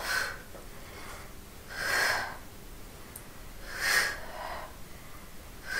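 A woman's sharp exhales, about one every two seconds, each one pushed out as she crunches up during oblique crunches.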